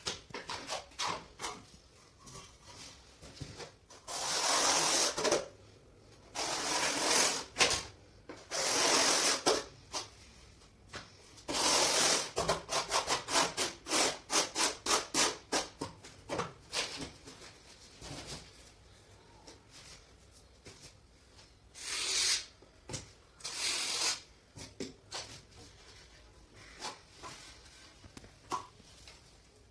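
Hand-worked rubbing and scraping strokes on a hard surface: a few longer strokes, then a quick run of short strokes at about three a second, then two more strokes near the end.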